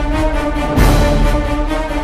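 Instrumental Tamil film theme music ringtone: held notes over a deep bass, with a heavy hit about a second in.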